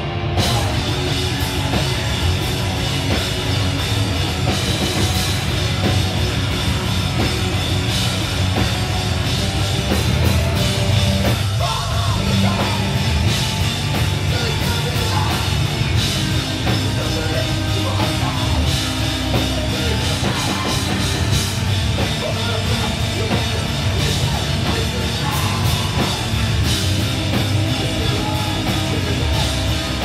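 Hardcore punk band playing live: distorted electric guitars over a drum kit, loud and unbroken.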